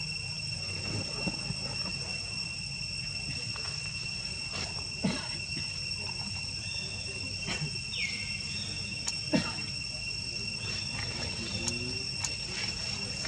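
Steady, high-pitched insect drone holding two even pitches, with a few sharp clicks scattered through it; the loudest click comes about nine seconds in. A short falling squeak sounds about eight seconds in.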